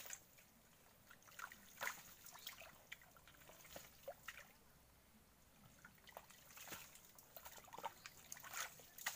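Hands digging through wet mangrove mud and puddled water: faint, irregular squelches and small splashes.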